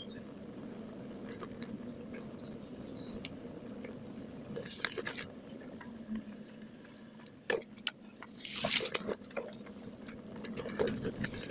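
Bicycle ride noise picked up by a camera on the bike, played at double speed: a steady rumble with scattered clicks and rattles, and a louder noisy burst about eight and a half seconds in.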